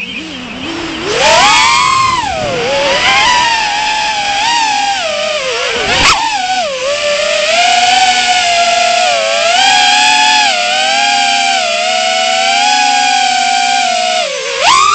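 Small FPV quadcopter's brushless motors and 3.5-inch propellers whining, the pitch gliding up and down with the throttle and jumping up sharply just after the start and again near the end. A short knock about six seconds in.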